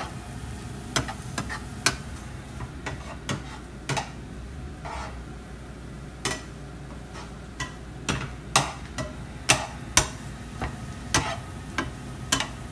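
Slotted plastic spatula tapping and scraping against a non-stick frying pan as egg and shredded vegetables are stir-fried: irregular sharp clicks that come louder and more often in the second half, over a low steady frying hiss.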